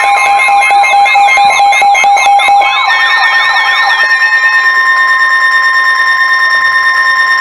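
Emergency weather alert tones, several electronic alarms sounding at once. For about the first four seconds a fast warbling, siren-like alarm runs over steady beeping tones. Then the warbling stops and a set of steady high tones carries on.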